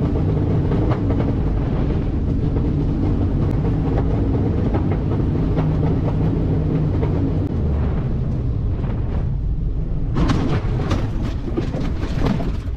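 Small light aircraft with a failed engine touching down and rolling over a rough dirt field: a steady heavy rumble with rattling and knocking of the wheels and airframe, under wind noise. About ten seconds in it turns harsher and brighter.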